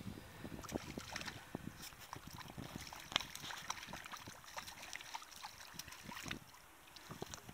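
Faint, irregular splashes and ticks as a hooked trout thrashes at the surface and is reeled in on a fly rod, over light wind.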